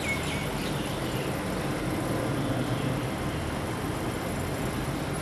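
Steady low hum of a vehicle engine idling, mixed with road traffic noise, with a brief high chirp at the very start.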